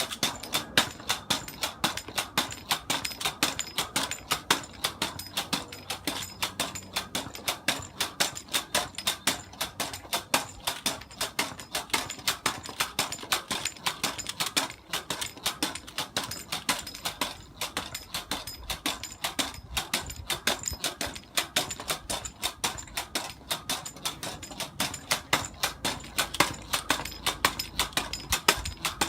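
Pogo stick bouncing steadily, its tip landing about twice a second, with a run of quick plastic clicks from a Rubik's Cube being turned between the landings.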